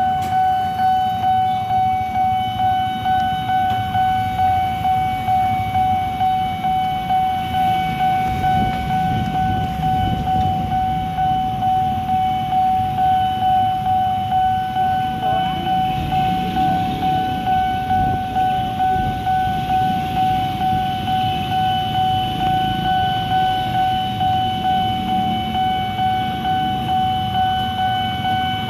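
Railway level-crossing warning bell ringing on one steady tone, about two strokes a second, the signal that the crossing is closed for an approaching train. Idling motorcycle and car engines rumble underneath.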